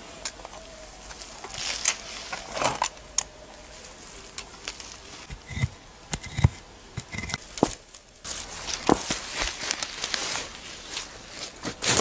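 Small hand digging tool scraping and chopping into loose forest soil, giving irregular scrapes and clicks, with a few dull thuds in the middle.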